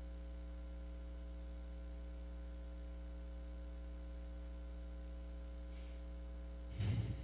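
Steady electrical mains hum from the microphone and sound system: a constant low buzz with many evenly spaced overtones. A brief soft sound near the end.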